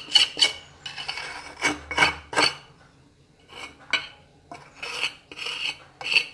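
A metal hand tool scraping wet cement mortar off the wall around a freshly set flush-mounting socket box, in short irregular strokes with a brief pause about three seconds in.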